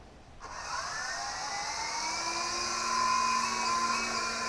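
Electric motors of a mid-size toy RC helicopter spinning up, a whine rising in pitch for about a second and then holding steady, with the rotors' hiss. A lower hum joins about two seconds in.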